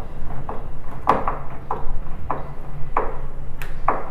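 Hand screwdriver driving a wood screw through a metal L hinge into plywood, each twist giving a short creak or click, about one every half second.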